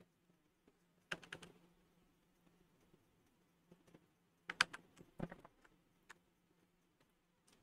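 Computer keyboard keys clicking in two short flurries of keystrokes, about a second in and again around four and a half to five and a half seconds, over a faint steady hum.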